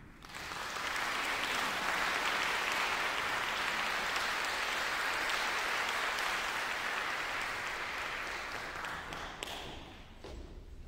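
Audience applauding in a small concert hall. The applause breaks out right at the start, holds steady, then thins to a few scattered claps and dies away near the end.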